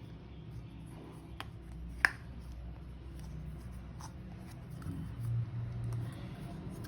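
Hands handling a boxed car suspension part and its plastic protective cover, with light rubbing and a few clicks; a sharp click about two seconds in is the loudest.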